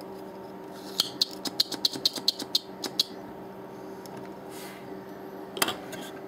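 Spring-loaded desoldering pump at work on a circuit board: a quick run of small clicks and taps, then, about five and a half seconds in, the pump fires with one loud sharp snap as its plunger springs back to suck up the molten solder.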